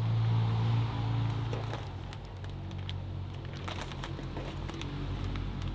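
Plastic zip-top bag crinkling and rustling with scattered small clicks as a hand scoops flour out of it, over a steady low hum.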